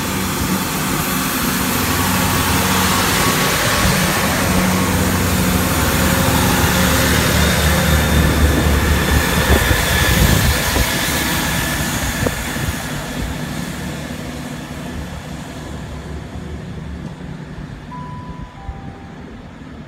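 GWR class 166 Networker Turbo diesel multiple unit pulling away from the platform and passing: diesel engines working under power over wheel-on-rail noise. It is loudest about ten seconds in, then fades as the train draws away.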